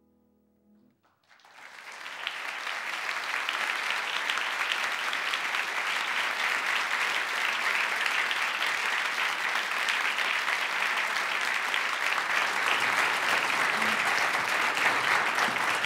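The last faint piano notes die away, and about a second in an audience breaks into applause that quickly swells and then holds steady.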